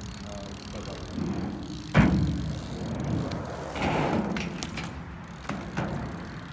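BMX bike rolling over concrete, tyres running with a steady gritty noise. A single sharp knock of the bike hitting the ground comes about two seconds in, the loudest sound, and a few lighter clicks follow near the end.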